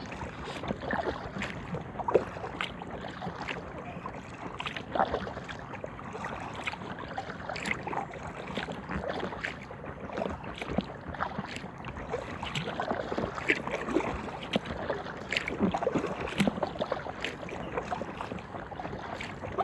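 Kayak paddle dipping and splashing in the water, stroke after stroke, with many small irregular splashes and drips.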